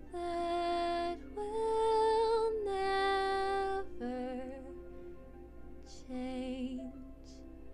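Closing bars of a gentle song: a few long, held notes with vibrato, loudest in the first four seconds, then softer notes that trail off.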